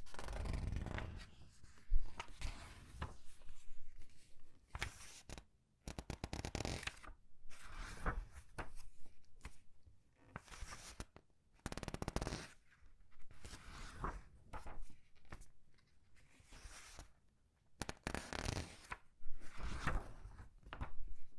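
Comic book pages being turned one after another and squeezed, a run of papery rustles and crinkles every second or two with short pauses between.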